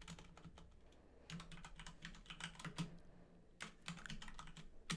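Typing on a computer keyboard: quiet runs of key clicks with short pauses between the words, ending in one louder keystroke.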